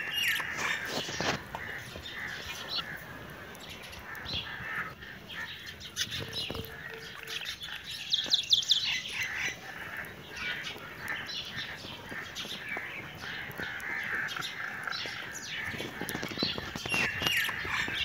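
Budgerigars chirping and warbling in short, frequent calls, with a quick run of higher chirps about halfway through.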